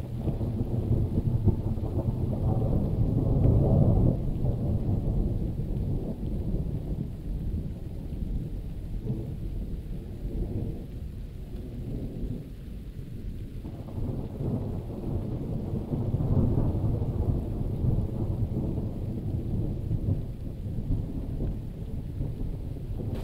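Thunderstorm: thunder rumbling over steady rain. The low rumble swells twice, loudest a few seconds in and again about two-thirds of the way through.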